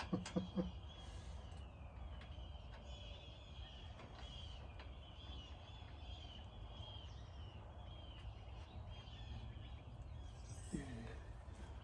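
Birds chirping continuously in the background over a low, steady rumble, with a few short knocks in the first second.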